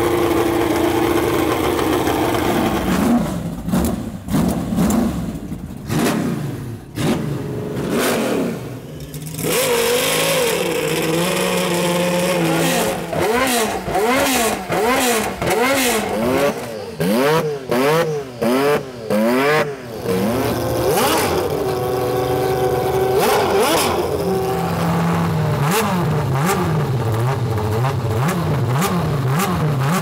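Historic Formula 1 car engines idling and being revved with short, sharp throttle blips, the pitch rising and falling several times a second in the middle and again near the end, between stretches of steady running.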